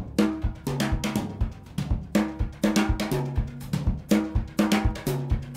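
Background music with a steady drum beat over a bass line and chords.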